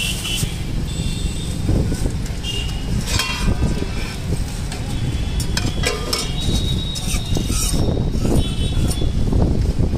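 Roadside ambience: a steady low rumble of traffic and wind, with scattered clinks of a steel ladle, pots and plates as sambar is served.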